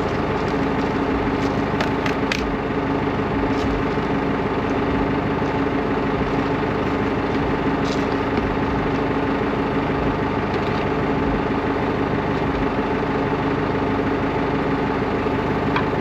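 Tractor engine running steadily under load while driving a newly built implement being tested in the field, with a few sharp knocks from the machinery about two seconds in and again around eight seconds.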